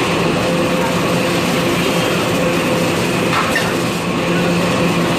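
Toilet roll and kitchen towel bundling packaging machine running: a steady mechanical din over a constant motor hum, with a faint click about three seconds in.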